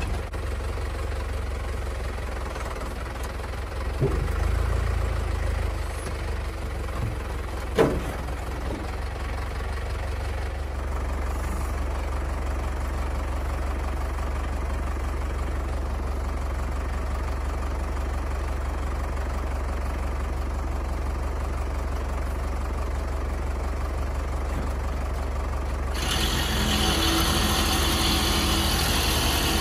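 Tractor engine running steadily at low revs and picking up briefly about four seconds in, with one sharp bang about eight seconds in. Near the end a louder rough rasping noise suddenly takes over.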